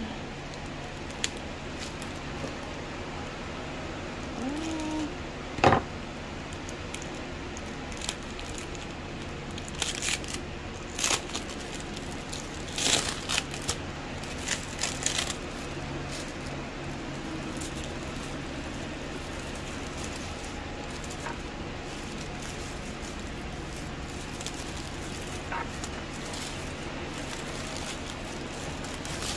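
Honeycomb kraft paper packing wrap being pulled apart and unwrapped by hand, crinkling and rustling in short bursts. There is a sharp snap about six seconds in, and the handling is busiest between about ten and fifteen seconds in, then quieter.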